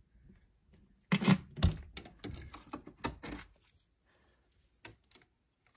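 Clicks and knocks of a key unlocking a jewelry armoire's mirror door and the door being swung open, loudest about a second in, with a few faint clicks near the end.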